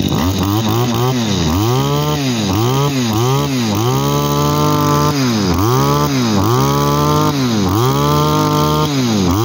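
Small two-stroke engine of an Echo 21cc brush cutter revved again and again with the squeeze throttle on its handle. A few quick blips come first, then longer revs held high for about a second each, falling back to idle between them, and quick blips again near the end.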